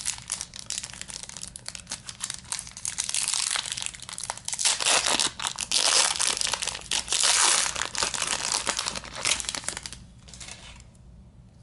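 Foil wrapper of a baseball card pack being torn open and crinkled by hand: a dense crackling rustle that gets louder midway and dies away near the end.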